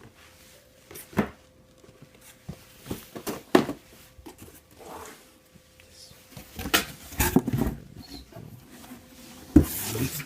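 A cardboard sneaker box and shoes being handled: irregular knocks, rubs and rustles, busiest in the second half, with a louder knock near the end.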